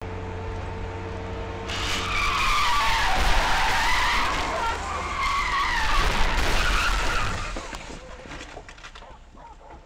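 Car engine and road hum heard from inside a dashcam car, then from about two seconds in a loud, wavering tyre squeal of hard braking and skidding lasting several seconds, in a crash that leaves a car on its side. The noise fades near the end into scattered clicks and rattles.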